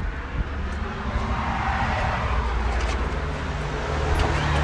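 Road traffic: a car passing on the street, its noise swelling and fading, over a steady low rumble.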